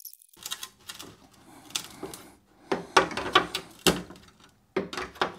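Irregular metallic clicks, knocks and short scrapes from a metal ski rail cover being worked loose from underneath a Tesla battery pack, its screws already out.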